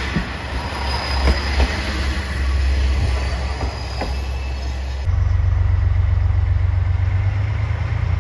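JR Shikoku 1000-series diesel railcar moving out along the track, its diesel engine running under the noise of the wheels, with a few sharp clicks over the rails. About five seconds in, the sound switches to a steady low engine drone.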